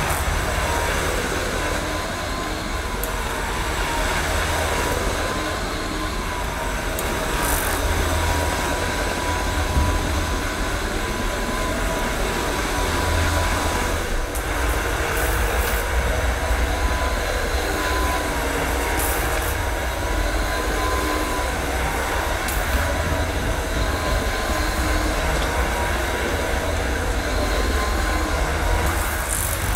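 Cordless twin-pad spinning floor cleaner running, its microfibre pads turning on a cushioned vinyl floor. A steady motor whine that wavers slightly in pitch as the cleaner is pushed about, over a low rumble that swells now and then.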